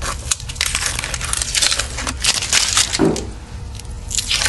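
Blue painter's tape crinkling and crackling as it is pressed and smoothed by hand into the groove inside a chrome wheel barrel. The sound is an irregular run of rustles and small crackles.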